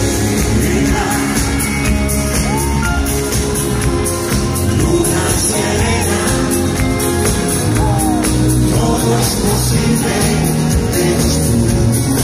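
Live pop-rock band playing loud: a male lead singer singing over electric bass, electric guitars and drums, heard from within the crowd.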